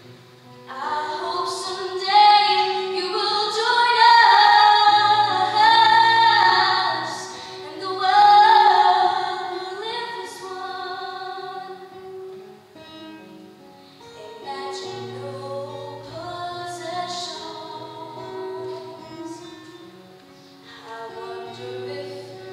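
A girl singing solo into a microphone, with long held notes over low sustained accompaniment notes. The singing is loudest in the first half and softer after about ten seconds.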